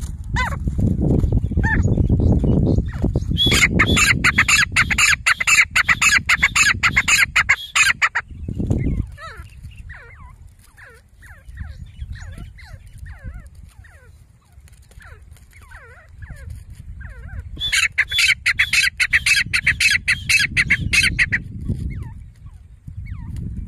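Grey francolins calling in two loud bouts of rapid, evenly repeated notes, each lasting a few seconds: one starting about three seconds in and the other near eighteen seconds. Faint short chirps fill the gap between the bouts, and a low rumble runs under the first few seconds.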